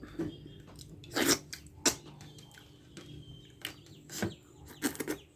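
Close-miked eating sounds: a person chewing, with wet lip smacks and mouth clicks, about half a dozen sharper smacks spread through.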